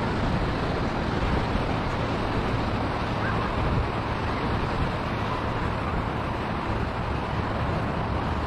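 Steady rumble of wind on the microphone over the wash of surf breaking on a sandy beach.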